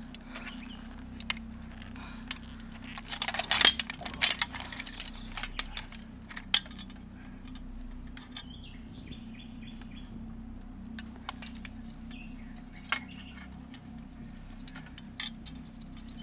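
Small metal objects clinking and jangling, with a dense flurry of clinks about three to four and a half seconds in and scattered single clicks after, over a steady low hum.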